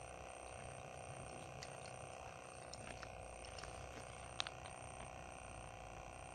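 Faint, steady hum with a few soft ticks between about two and four and a half seconds in.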